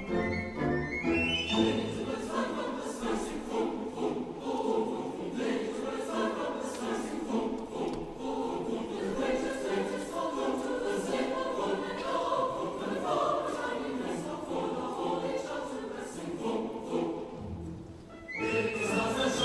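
A choir singing a sustained, unaccompanied-sounding passage; instrumental accompaniment with bass is heard in the first second and a half and comes back in near the end after a brief dip.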